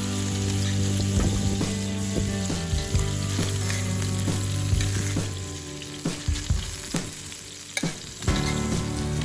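Steak sizzling in a frying pan, with a utensil clicking and scraping against the pan now and then.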